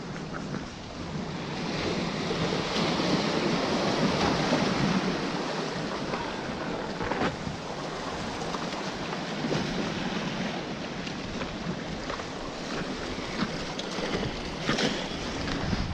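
Surf washing against jetty rocks, mixed with wind on the microphone. The wash swells for a few seconds about two seconds in and then eases, with a few faint clicks.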